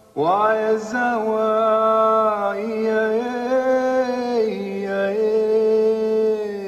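A chanting voice in music, singing long held notes. It scoops up into the first note just after the start, then steps to new pitches a few times.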